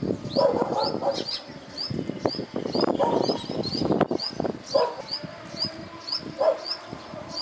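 Wind gusting against the microphone in uneven swells, with a short high chirp repeating about three times a second throughout.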